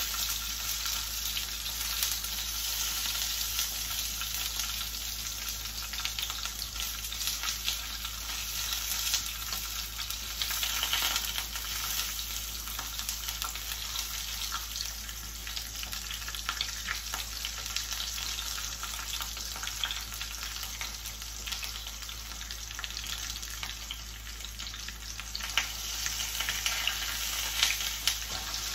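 Onion pieces frying in hot oil in a skillet: a steady sizzle full of fine crackles. Near the end come a few louder taps and scrapes as the pieces are turned with a spatula.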